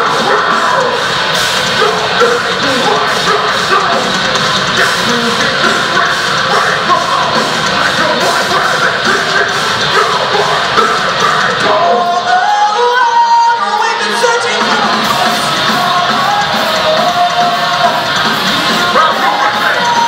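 Live metalcore band playing loud: distorted guitars and drums under a screamed lead vocal. About twelve seconds in, the heavy low end drops out for about two seconds, leaving a higher melodic line, then the full band comes back in.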